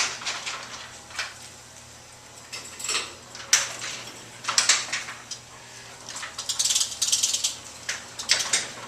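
Motorized garage screen door being raised along its track by its opener, with irregular mechanical clacks and rattles over a faint steady hum.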